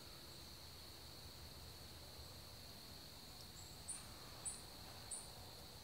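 Faint, steady high-pitched drone of insects such as crickets, with three short high chirps about half a second apart in the second half.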